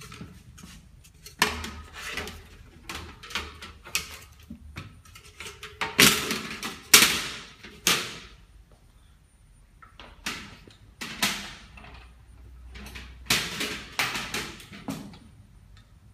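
Irregular knocks, clicks and scraping as CPC reflector mirrors and their clips are handled and fitted under the glass tubes of a solar water heater, with the loudest scraping about six to eight seconds in and again around thirteen to fifteen seconds in.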